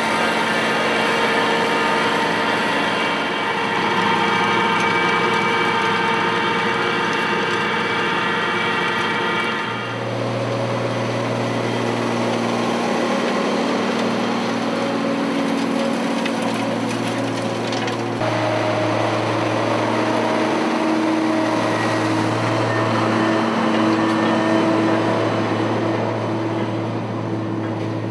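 Tractor engines running steadily while pulling soil cultivation implements across a field, in three stretches that change abruptly about ten and eighteen seconds in; the first stretch carries a steady high whine over the engine.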